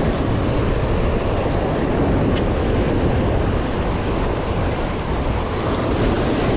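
Strong wind buffeting a GoPro microphone over heavy surf breaking on rocks, a steady dense noise with no let-up.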